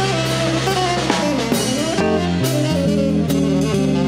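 Live jazz trio playing a ballad: tenor saxophone carrying the melody, bending down and back up in pitch about a second in, over electric keyboard chords and bass notes, with drum kit and cymbals keeping time.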